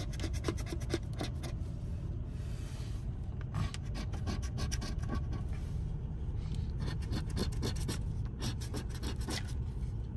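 A coin scratching the coating off a paper scratch-off lottery ticket: quick rasping strokes in three bursts, with short pauses between them.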